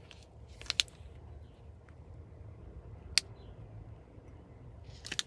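Light hammer taps on a metal pin punch, driving out the window pivot latch's pin: two quick sharp taps just under a second in, a single tap about three seconds in, and a few more near the end.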